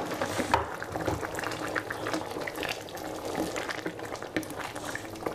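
Green curry chicken boiling hard in a stainless steel pot as it cooks down, the liquid bubbling with many small irregular pops, while a wooden spoon stirs through the chicken pieces.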